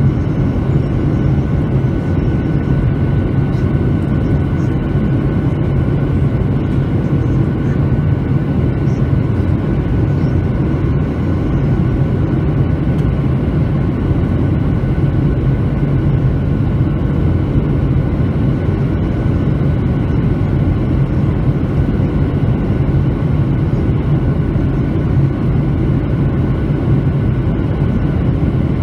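Steady in-flight cabin noise of a Boeing 737-900 on approach: a low, even rumble from its engines and the air rushing past the fuselage, with a faint steady high tone above it.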